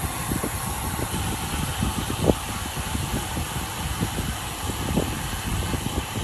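Steady wind and road rumble on the camera of a moving road bike, with many small knocks and rattles from the road surface.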